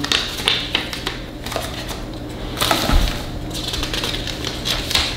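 Paper leaflets being handled and unfolded on a tabletop: crisp rustling and crinkling with many small clicks and taps, and a soft thump about three seconds in.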